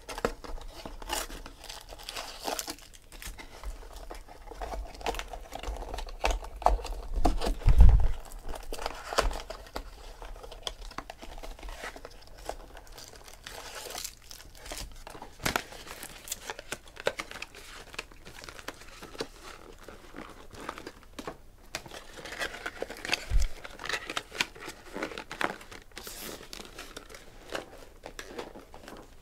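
Plastic shrink wrap and foil packaging of a Bowman's Best baseball card box crinkling and tearing as the box is unwrapped and the packs are pulled out. A low thump about eight seconds in is the loudest sound, with a smaller one later.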